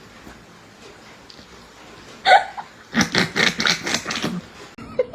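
A short, sudden burst about two seconds in, then a person laughing in quick breathy pulses for about a second and a half.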